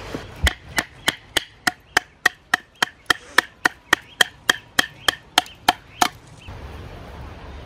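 Rapid, evenly spaced wooden knocks, about three to four a second, as a blade is tapped down through a thin stick of firewood to split it into kindling. The knocking stops about six seconds in.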